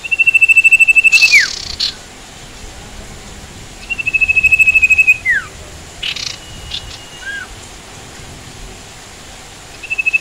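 Sirtu song: a rapid trill held on one pitch for about a second, ending in a quick downward slur. It comes at the start and again about four seconds in, with a few short clicks and small upturned notes between, over a steady hiss.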